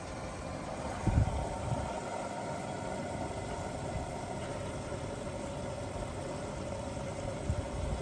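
Beko washing machine at the start of its cycle, water rushing steadily in through the inlet valve to fill the drum, with a couple of low thumps about a second in and again near the end.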